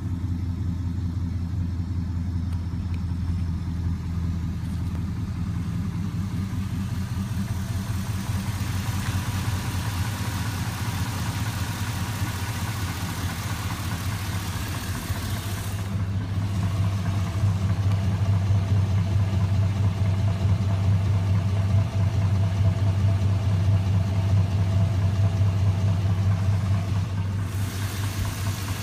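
Swapped-in GM LS V8 engine in an '88 Chevy idling steadily with a knock noise. It gets a little louder about halfway through, then settles back near the end.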